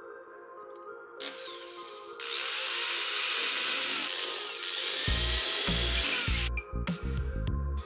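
A power drill running, driving a long screw down into a cork, for about four seconds before it stops; it gets louder about two seconds in. Background music plays throughout, with a deep beat coming in near the end.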